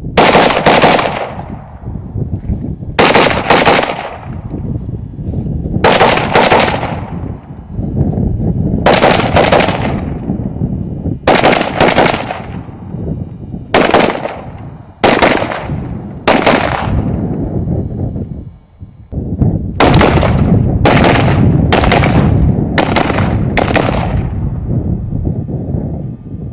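Rifle shots fired singly and in quick pairs a few seconds apart, each trailing off in an echo, with a faster run of shots near the end, over a low rumble between shots.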